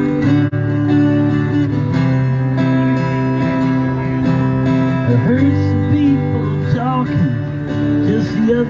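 Music from a strummed acoustic guitar: steady chords with held notes, and a few sliding pitches about two-thirds of the way through.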